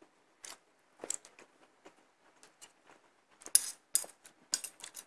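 Metal spoon and fork clinking and scraping against a plate while scooping food, a scattered series of light clicks that thickens and is loudest about three and a half seconds in.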